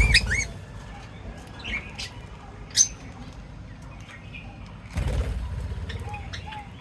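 Pet birds chirping with scattered short, sharp calls and a repeated short low note, and a burst of wing flapping at the start and another about five seconds in.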